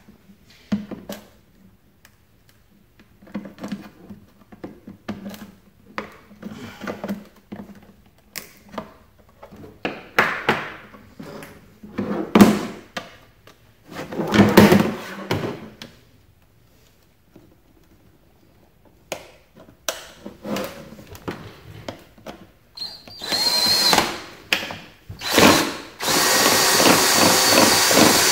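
Scattered knocks and clicks of a hard plastic box and tools being handled. Near the end a DeWalt cordless drill starts in a few short bursts, then runs steadily, boring a hole through the wall of the plastic watertight box.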